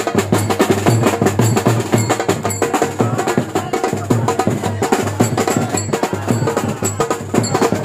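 Percussion-heavy music with a fast beat of sharp, wood-block-like clicks and drum hits.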